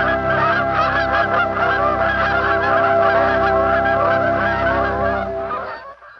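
A flock of geese honking, many calls overlapping, over steady held tones; it all fades out near the end.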